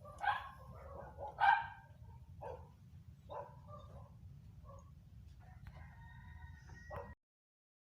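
Rooster crowing, with shorter calls before it, over a low steady rumble; the sound cuts off suddenly about seven seconds in.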